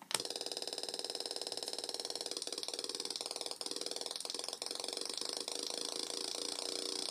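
Atari Punk Console, a 555-timer step-tone synth, switched on with a click and then droning a harsh buzzing tone. From about two and a half seconds in, its pitch sweeps and wobbles as its two knobs are turned.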